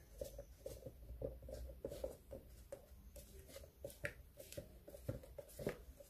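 A spatula stirring thick cake batter inside a plastic blender jar: faint, irregular soft scraping and tapping against the jar's sides.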